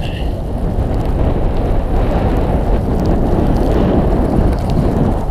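Wind rushing over a camera microphone on a fast run down a groomed ski slope: a steady, loud, low rumble that grows a little louder after about a second and a half.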